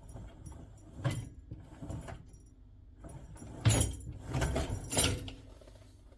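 Several rattles and knocks of something being handled, the loudest about three and a half and five seconds in, over a low steady hum.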